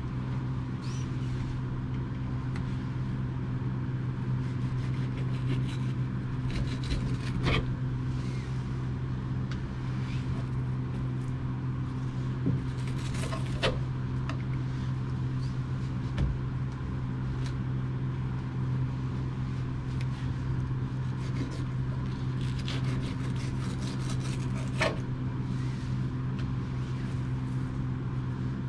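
A steady low mechanical hum, with a few sharp clicks and light scrapes of a knife against a plastic cutting board as a rockfish fillet is skinned.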